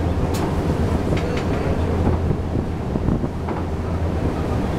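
Steady low drone of a ship's engine with wind buffeting the microphone. A few faint ticks come in the first second and a half.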